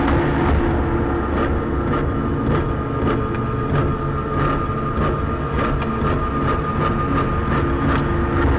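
Processed office noise made into a horror sound effect: a dense low rumble with faint held tones, and a steady run of clicks, about two or three a second.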